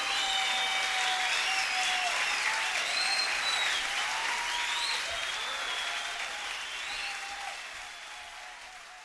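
Audience applauding and cheering at the end of a live song recording, fading away over the last few seconds.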